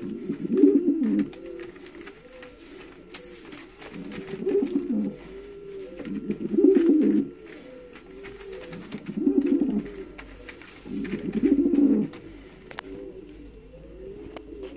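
Pouter pigeons cooing: low, repeated coos throughout, rising to five louder bouts of cooing about every two to three seconds.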